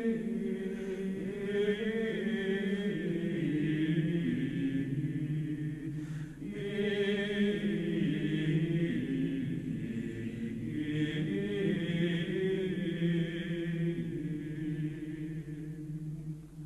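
Slow sung chant as background music: voices holding long notes that change pitch in slow succession, with a brief break about six seconds in.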